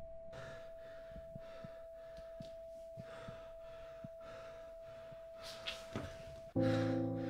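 A man's fast, panicked breathing and gasps over a steady high ringing tone. About six and a half seconds in, the tone cuts off and loud music comes in.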